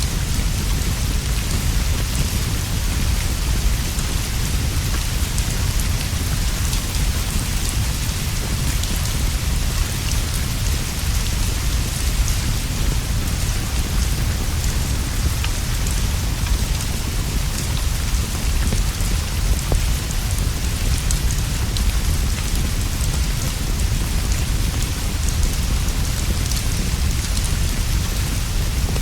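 Steady rain falling, an even hiss over a constant deep low rumble, with scattered faint ticks and pops of a crackling wood fire.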